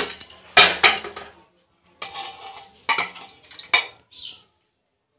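Metal ladle and pressure-cooker lid clanking against the cooker as the lid comes off and the ladle goes into the dal, a handful of sharp clinks spread over the first four seconds.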